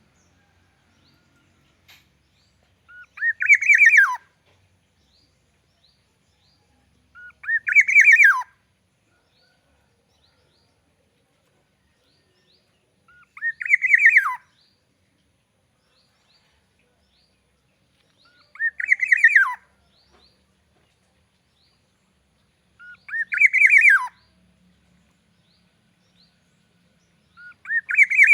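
Black-naped oriole (kepodang emas) calling: a short phrase about a second long, repeated about every four to five seconds, each one ending in a quick falling note.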